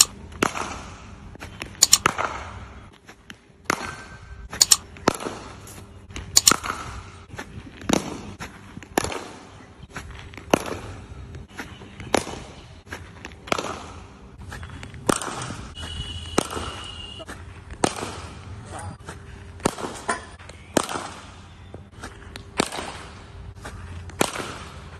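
Cricket bat striking balls in a practice net: sharp cracks repeated every second or two, with softer knocks of the ball in between.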